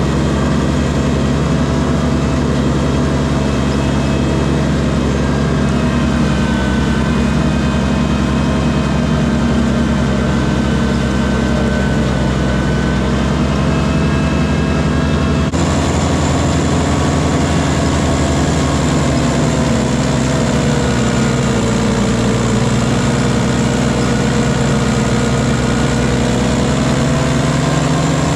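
Kubota diesel tractor engine running steadily, its pitch wavering slightly. The sound changes abruptly about halfway through.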